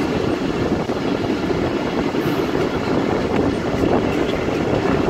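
Awami Express passenger train running, a steady rumble of wheels and carriages.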